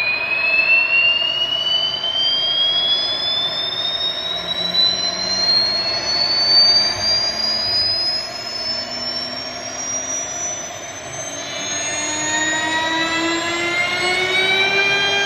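CNC router spindle spinning up: a high whine that rises steadily in pitch. About eleven seconds in, a second, lower whine joins, climbing and then holding steady.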